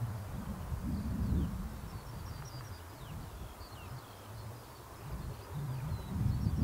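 Small birds chirping and twittering over a low, uneven rumble that eases off in the middle and swells again near the end.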